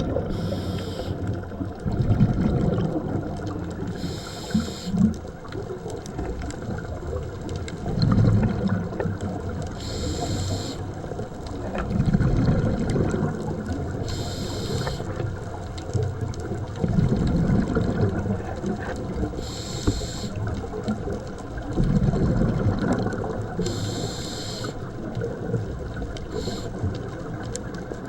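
Scuba diver breathing through a regulator underwater: a hiss with each inhalation, about six times, alternating with rumbling bursts of exhaled bubbles.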